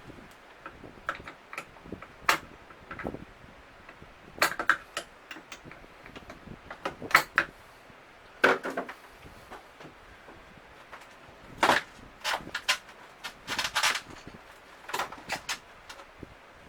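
Intermittent clicks, knocks and clatters from hands working with tools and plastic refrigerator parts. They come as single knocks and short clusters a second or more apart.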